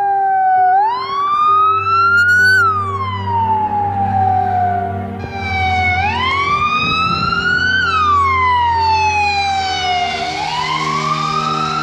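Ambulance siren wailing, its pitch sliding slowly up and then down, each rise and fall taking about four to five seconds, over the hum of the vehicle's engine.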